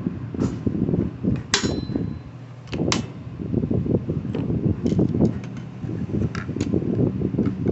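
Sharp metallic clicks and clinks of tools against chainsaw clutch parts, about seven in all, one ringing briefly, over a low rumble.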